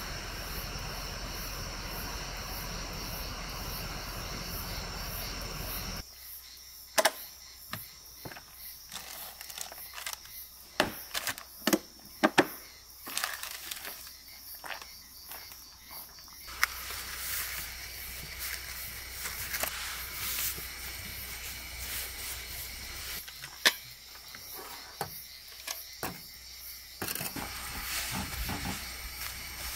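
Steady night-time hiss, then from about six seconds in a run of sharp clicks and knocks as a hard-sided cooler is opened and handled, more knocks later on, and near the end the soft rustle of a paper towel patting a raw steak dry.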